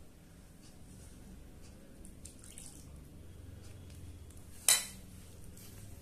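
Quiet mealtime sounds: soft clicks of a spoon and glass gravy bowl while gravy is served onto rice and the rice is mixed by hand, with one sharp clink near the end.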